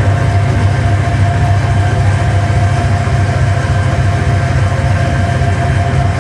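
Live electronic music: a dense, steady low drone with a single held tone above it, no beat and no change through the passage.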